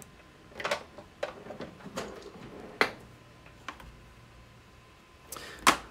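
A few light, separate clicks and knocks, roughly one a second, with a quick pair near the end, over a faint low hum.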